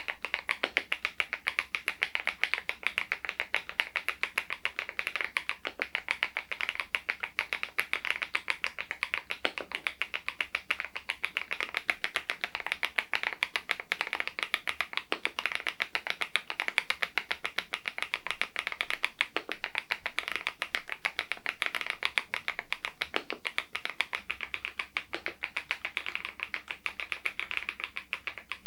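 Continuous typing on an SPM PL108W full-size low-noise keyboard fitted with Baby White switches: a steady run of keystroke clacks, several a second.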